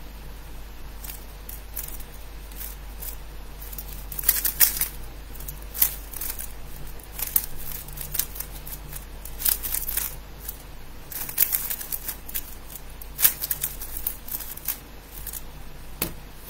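A 3x3 speedcube being turned rapidly by hand: quick, uneven runs of plastic clicks and clacks as the layers snap around. Near the end comes a single knock as the cube is set down on the table.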